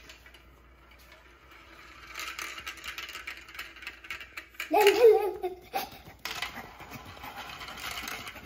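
A marble rolling and clattering down a plastic VTech Marble Rush track and spinning around its funnels, a fast rattle of small clicks that starts about two seconds in. About halfway through, a child's voice breaks in briefly, and it is the loudest sound.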